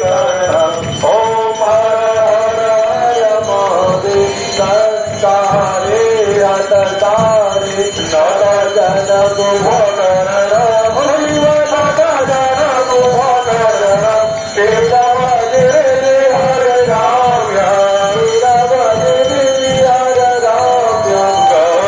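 Hindu devotional aarti song: a male voice sings the melody over a steady percussion beat.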